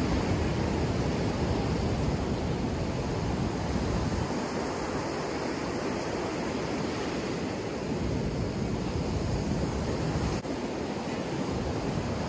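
Rough surf breaking and washing up on a sandy beach, with wind gusting on the microphone.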